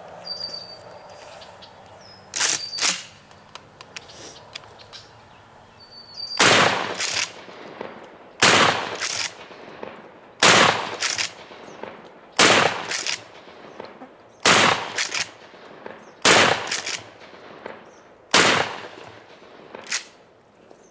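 A 12-gauge Mossberg 500 pump-action shotgun firing #8 birdshot: seven loud shots about two seconds apart. Each shot is followed about half a second later by a fainter clack as the pump is worked to chamber the next shell.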